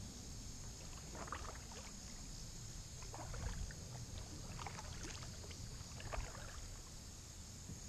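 Paddle strokes in creek water: short splashes and drips off the blade about every one and a half to two seconds, over a steady high insect drone.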